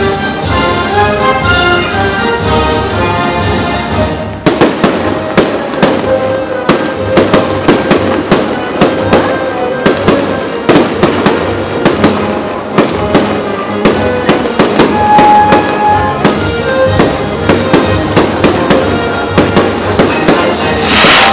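Orchestral music with brass for about the first four seconds, then a sudden change to fireworks going off: rapid, dense bangs and crackling from aerial shells bursting, which continue to the end.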